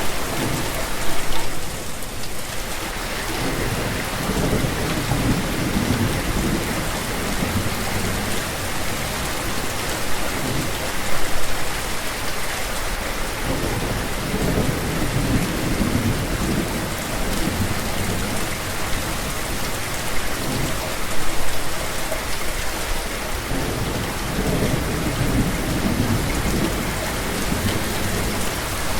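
Steady rain falling, with low rolling thunder rumbling up three times.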